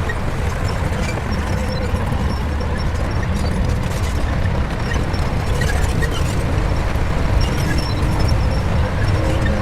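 Shantui bulldozer's diesel engine running steadily under work, a deep even engine noise that holds at the same level throughout.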